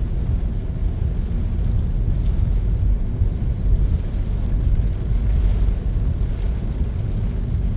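Inside a car driving in heavy rain: a steady low rumble of road and engine noise with a faint hiss of rain.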